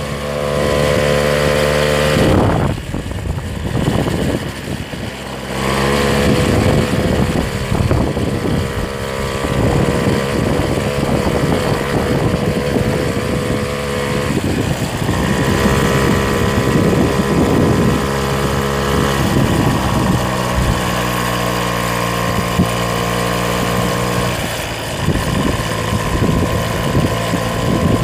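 A vehicle's engine running under load on a rough, stony dirt track, its note stepping up and down in pitch several times as the revs change, with knocks and rattles from the ground.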